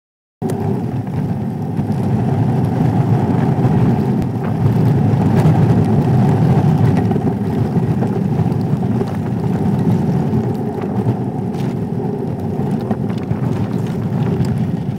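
Engine and road noise of a Volkswagen vehicle driving along a rough lane, heard from inside the cabin as a dense, steady rumble.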